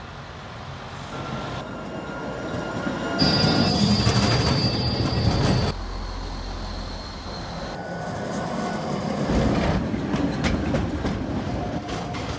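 Trams running on street track: the rumble of steel wheels on rail with a high wheel squeal and clicks over rail joints, in several short stretches that change abruptly.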